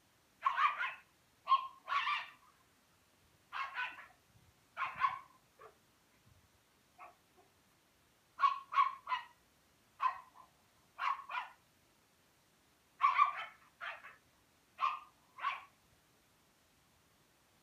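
A dog barking repeatedly in short, sharp barks, in ones, twos and quick threes, with brief pauses between groups.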